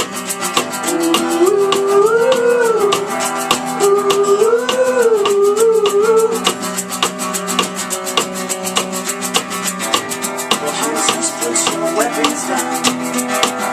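Live acoustic band music in an instrumental break: strummed guitar under a steady shaker rattle at about four beats a second, with a wavering, wordless melody line over it in the first half.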